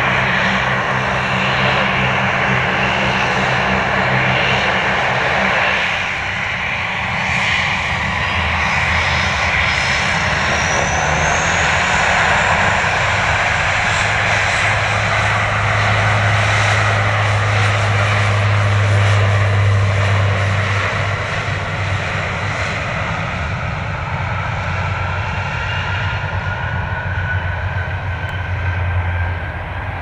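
Airliner engines running loud, a continuous rushing noise with a low hum. A high whine rises in pitch about ten seconds in, and another tone climbs slowly later on.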